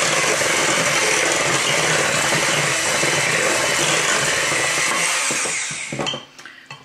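Old electric hand mixer running steadily in a bowl of cake batter, beating in mandarin orange pieces. It winds down and stops about six seconds in, followed by a few light knocks.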